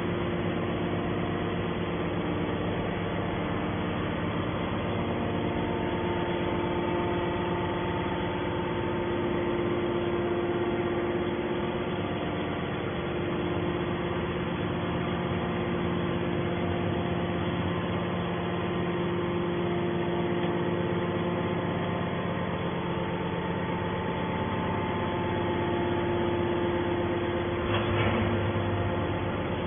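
A hydraulic scrap-metal baler running: a steady mechanical hum with several held tones, and a short burst of knocks near the end.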